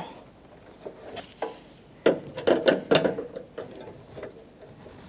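Clicks and rattles of a door handle's linkage rod, its plastic clip and the door latch mechanism being worked by hand, in a cluster about two seconds in, with single clicks before and after.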